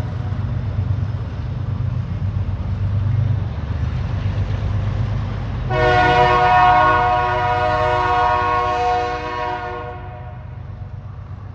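BNSF freight train rumbling low, with one long blast of its locomotive air horn starting about halfway through and lasting about four seconds. The uploader takes the horn for a Nathan K3HA. The train's sound fades off near the end.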